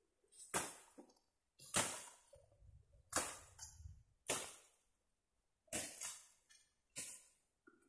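Footsteps crunching on dry leaves and grass, close to the microphone, about one step a second, with a low rumble of handling or wind in the middle.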